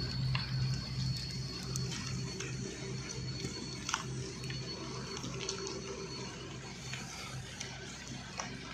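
Rain falling steadily, with scattered small clicks of drops and a low pulsing hum underneath.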